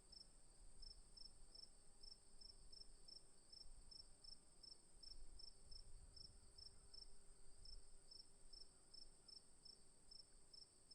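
Crickets chirping faintly: a steady high trill with a second, lower-pitched cricket chirping about three times a second over it.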